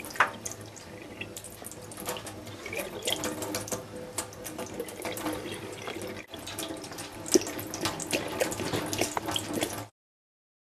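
Thin stream of water running from a kitchen mixer tap into a stainless steel sink. Irregular small splashes and clicks come through it as a cat drinks from and paws at the stream. It stops suddenly near the end.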